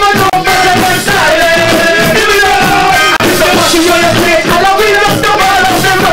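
Hip-hop beat playing loud, with drums and a singing voice or melody line over it.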